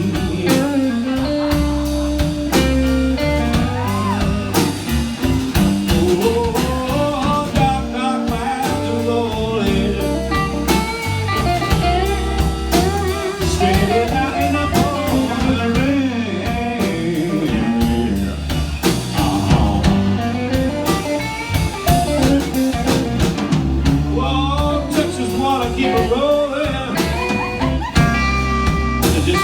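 Live blues band playing a slow blues instrumental break: a lead guitar plays bending, wavering notes over bass and a drum kit keeping a slow beat.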